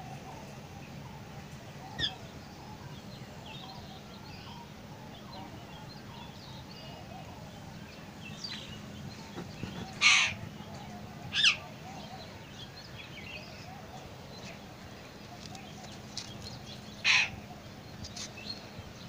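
A few short, loud bird calls: one about ten seconds in, another a second later and one near the end, with fainter chirps between them over a steady faint background.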